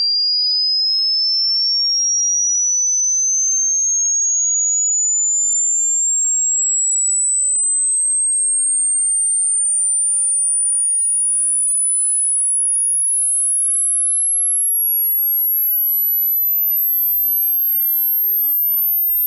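Hearing-test sine-tone sweep: a single pure tone gliding slowly and steadily upward in pitch, from high to very high, at an even level, to find the highest pitch the listener can still hear.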